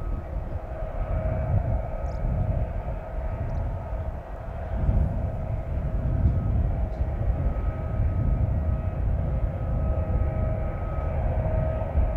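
Steady machinery hum of a parked airliner and the ground equipment serving it on the apron: a low rumble that swells and eases, with a constant whine of a few steady tones over it.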